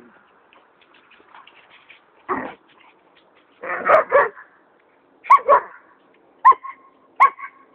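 A dog barking: about seven short, sharp barks in ones and pairs, starting about two seconds in. They are play barks at another dog that won't join in.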